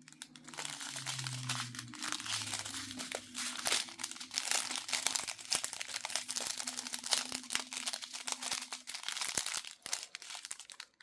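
Small plastic bags of diamond-painting drills being handled and crinkled, with dense crackling and rustling that stops about a second before the end.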